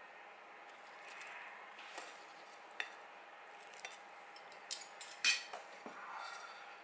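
A metal utensil and a ceramic plate making a few light clinks and short scrapes as a fried egg is set down on the plate. The sharpest clink comes a little past five seconds in.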